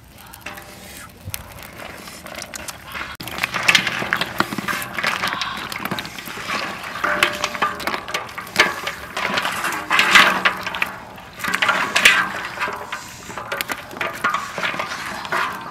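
Snail shells and eggs clattering and knocking together in a wicker basket as they are tipped and handled, a dense run of sharp clicks and knocks.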